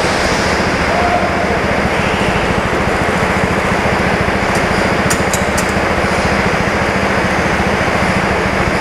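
Four-stroke petrol go-kart engine running steadily under throttle, picked up close by a camera mounted on the kart. A few short sharp ticks come about five seconds in.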